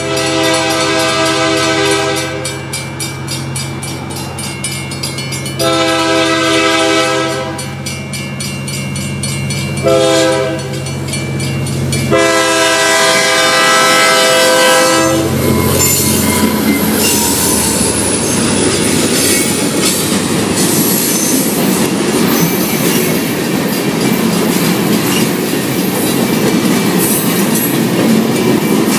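Diesel freight locomotive sounding its multi-note air horn in the grade-crossing pattern: long, long, short, long, with the engine running underneath. After the last blast the freight cars roll past with a steady clatter of wheels on rail.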